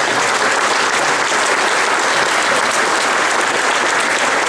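Audience applauding, a steady, unbroken round of hand clapping.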